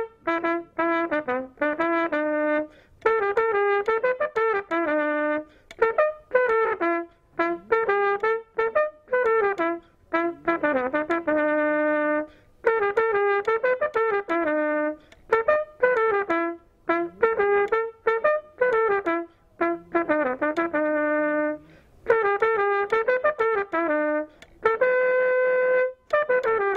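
Solo trumpet playing a melody in short phrases of separately tongued notes, with brief breaths between phrases and one long held note near the end.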